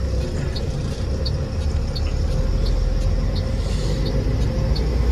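Diesel truck engine and road noise heard from inside the cab, a steady low rumble growing a little louder as the truck pulls away and gathers speed. A light tick repeats about every three-quarters of a second.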